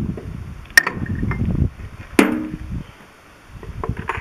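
A brass hammer striking a nut threaded onto the shaft end of a David Brown 1200 tractor engine's timing gear, twice about a second and a half apart, the second blow leaving a short metallic ring. The gear is being driven off its shaft with a pry bar behind it, since no puller fits.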